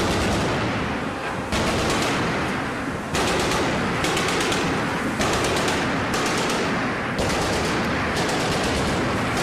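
Shipboard Mk 38 25 mm machine gun system (M242 Bushmaster chain gun) firing repeated bursts of automatic fire, a fresh burst starting sharply about every second.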